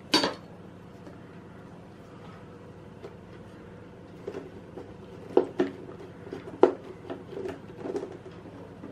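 Kitchen handling noises while rolled pizza dough is reshaped on a pizza plate: a sharp tap at the start, a few quiet seconds, then a run of short knocks and taps over the second half, two of them louder.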